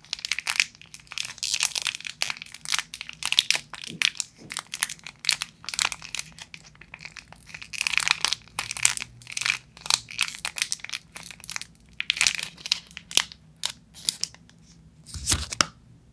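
Plastic wrapper of an Eden Joy coconut chocolate bar crinkling and crackling in irregular bursts as fingers squeeze and twist the wrapped bar. Near the end, a soft thump as the bar is set down on the table.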